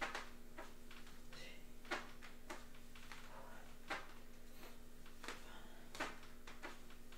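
Faint, short, sharp sounds of a person doing crunches on foam floor mats, the strongest about every two seconds with softer ones between, over a steady low hum.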